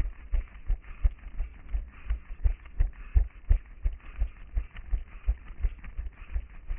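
A runner's footsteps on a paved sidewalk, picked up through a head-mounted action camera: regular low thuds at running pace, about three a second.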